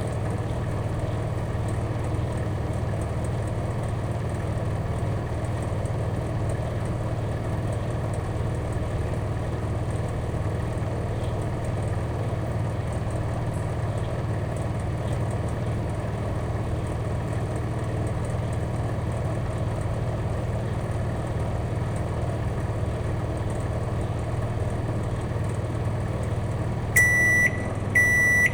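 Microwave oven running with a steady low hum, then two short high beeps about a second apart near the end as the cooking cycle finishes.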